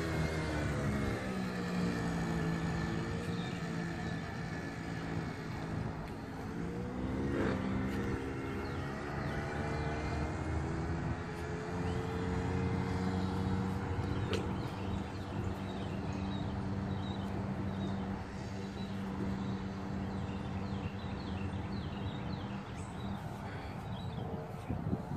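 Small engine of a child's yellow quad bike running as it is ridden. The engine note drops at first, picks up again about seven seconds in, then runs fairly steadily.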